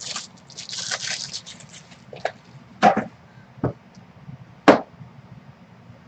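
Handling noise at a tabletop: a brief rustle about a second in, then several separate sharp taps and knocks.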